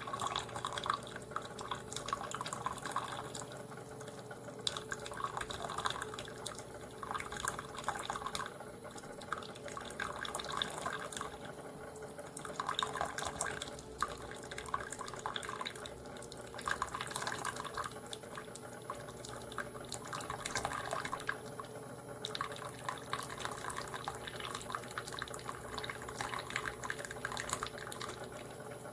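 Tastyle single-serve coffee maker brewing: hot water trickles and drips, with louder gurgling surges about every couple of seconds over a faint steady hum. The water is leaking down around the coffee basket rather than flowing through the needle.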